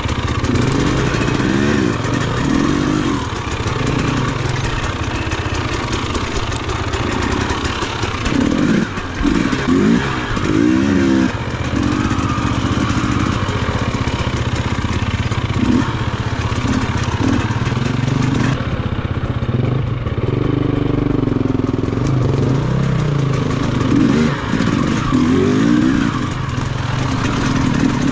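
KTM enduro motorcycle engine being ridden off-road, revving up and dropping back over and over as the throttle is opened and closed.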